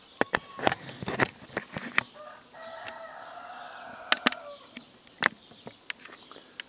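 A rooster crows once, one long call of about two seconds in the middle, over a string of sharp clicks and footsteps on pavement.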